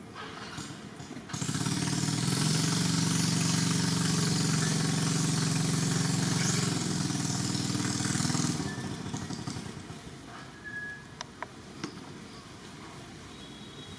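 A motor engine running steadily for about seven seconds, starting abruptly just over a second in and dying away near the middle, followed by a few faint clicks.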